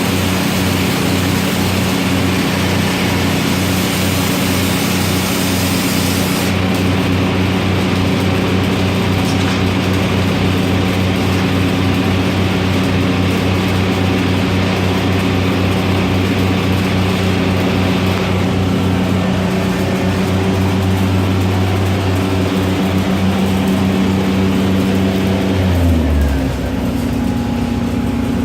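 Engine-driven welding machine running steadily under load. Its engine note drops sharply about 26 seconds in as it changes speed.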